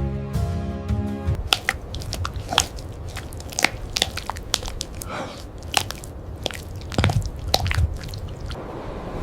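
Music with held tones stops about a second and a half in, giving way to irregular, sharp crunching clicks spaced unevenly, several a second.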